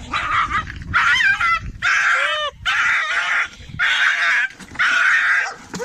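A series of about six loud animal calls, roughly one a second, each lasting about half a second.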